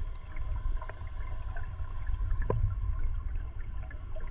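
Underwater sound picked up by a camera on the fishing line: a steady low rush of water, with scattered small pops and clicks and one louder knock about halfway through. A faint steady high hum runs underneath.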